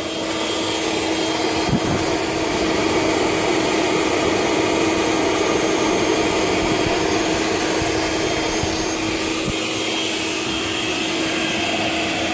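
Cheap electric airbed (dinghy) inflator running steadily as the air blower of a homemade coal-fired furnace. It makes a steady hum over a loud rush of air forced through a copper pipe into the coals to raise the heat.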